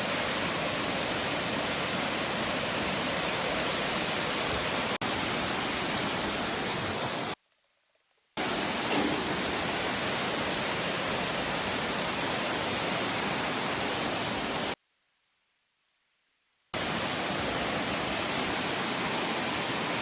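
Steady, even rush of falling water from the waterfall cascades. It cuts out abruptly twice: for about a second near the middle and for about two seconds a little later.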